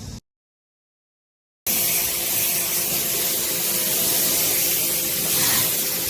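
Hissing spray of a pressure washer rinsing an air conditioner, a steady loud hiss with a low hum beneath it. It starts abruptly about a second and a half in, after a short stretch of dead silence.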